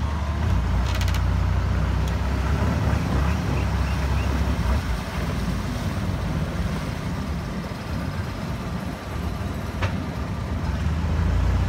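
Boat engine running steadily, a continuous low rumble.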